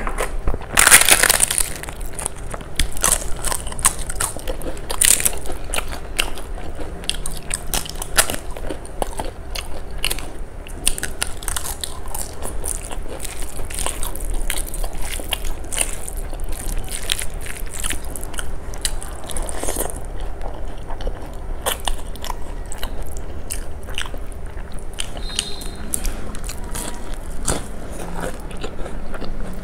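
A person eating close to the microphone: chewing and crunching food, with many short crisp clicks and crackles. A loud crunch comes about a second in.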